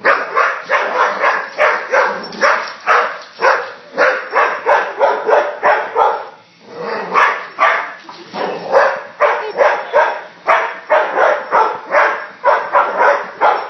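A dog barking rapidly and repeatedly, about two to three barks a second, at a small flying toy helicopter, with a brief pause about six seconds in.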